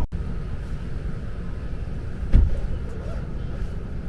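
Steady low rumble of a moving vehicle, with a single knock about two and a half seconds in.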